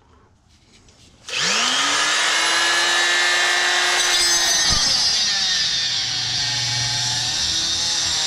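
Handheld power tool switched on about a second in, its motor spinning up with a rising whine and then cutting into magnetron copper with a steady loud hiss. The motor pitch drops about halfway through as the tool bites under load.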